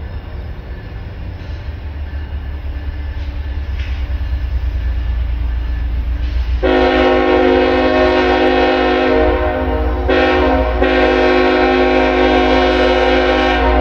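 Diesel freight locomotive approaching, its low engine rumble growing louder, then its multi-note air horn blowing a long blast about halfway in, with a short break before a second long blast.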